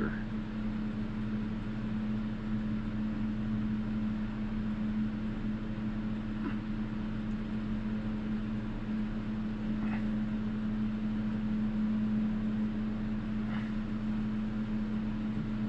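Steady machine hum at a constant pitch, like a room fan or air-handling unit, with three faint brief sounds over it.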